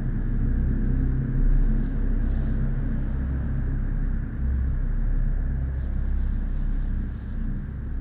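A steady low rumble, like vehicle or traffic noise, that holds at much the same level throughout.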